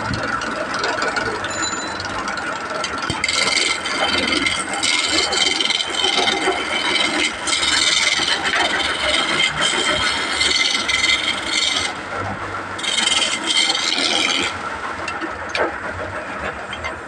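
Sawmill saw running and cutting through wood: a steady machine hum, with a loud high hiss of the blade in the wood starting about three seconds in, breaking off briefly near twelve seconds and stopping about two and a half seconds before the end.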